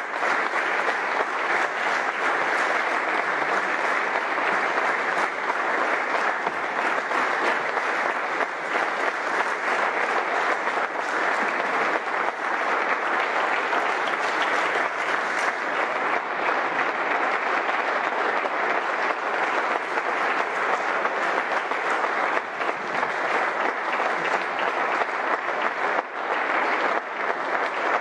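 Long, steady applause from a crowded hall audience, many hands clapping at once.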